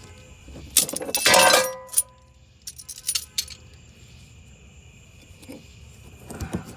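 A loud metallic bang with a ringing tone as the ball joint press forces the worn upper ball joint free of the steering knuckle, followed by a few lighter metal clinks.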